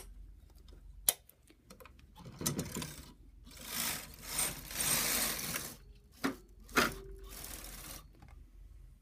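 Carriage of a Brother knitting machine pushed across the needle bed to knit a row, a steady mechanical swishing run lasting about two and a half seconds in the middle. A few sharp clicks come before and after it.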